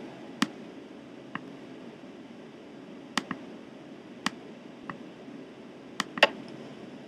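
Quiet room hiss with about eight small sharp clicks scattered irregularly through it, two of them close together a little after three seconds and two more about six seconds in.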